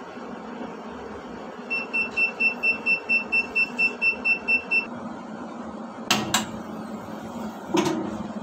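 Cytocentrifuge's electronic buzzer beeping fast, about five short high beeps a second for some three seconds, after the rotor has braked to a stop. Then two sharp clacks about a second and a half apart as the lid is released and opened.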